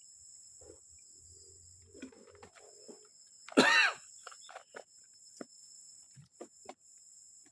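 Steady high-pitched drone of forest insects. About halfway through comes one loud, short pitched call, followed by a scatter of light knocks.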